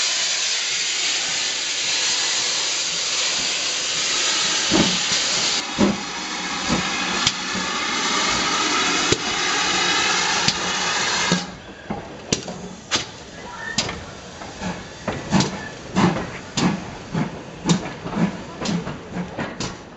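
GWR steam locomotives: a loud, steady hiss of escaping steam, which drops away suddenly about eleven seconds in. It gives way to a run of sharp beats, about two a second, as the locomotive moves along the platform.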